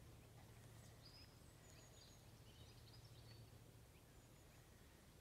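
Near silence: faint outdoor ambience with a steady low hum and a few faint, short high bird chirps in the middle.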